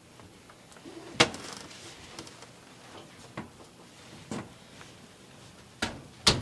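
A handful of sharp, separate knocks and clicks: the loudest about a second in, then three lighter ones, and two more close together near the end.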